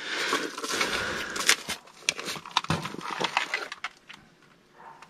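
Hands rummaging through a shelf of stored telephones and boxes: rustling, then a quick run of plastic clicks and knocks as a beige phone is pulled out. It goes quiet about a second before the end.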